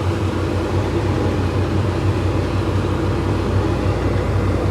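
Farm tractor engine running with a steady low drone while it pulls an auger wagon alongside the combine during unloading.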